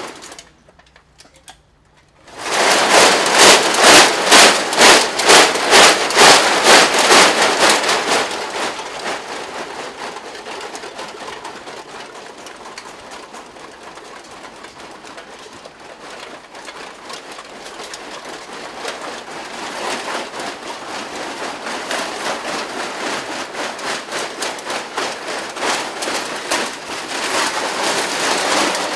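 A costume of hundreds of aluminium drink cans rattling and clattering as its wearer moves. After a brief near-silence about a second in, it shakes loudly in a rhythm of about two jolts a second for several seconds, then settles to a quieter continuous rattle that builds into rhythmic shaking again near the end.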